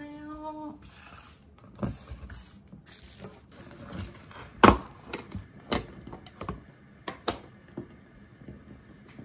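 Irregular knocks and clatter of plastic food containers being handled and set down on a kitchen counter, the loudest knock about halfway through.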